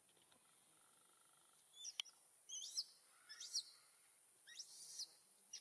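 Faint, high-pitched animal chirps: four or five short calls sliding up and down in pitch, starting about two seconds in.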